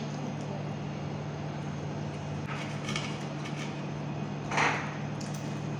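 Knife and fork scraping and cutting against a cast-iron sizzle plate, with a short faint scrape near the middle and a louder scrape about three-quarters of the way through, over a steady low hum.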